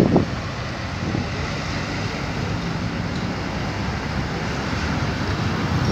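Steady rumble of road traffic and wind on the microphone, mixed with the distant engine noise of an Airbus A330 jetliner descending on approach.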